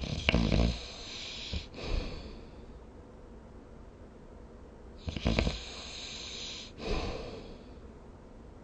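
A sleeping person snoring, two breaths about five seconds apart. Each breath is a loud snore followed about a second and a half later by a softer second snore.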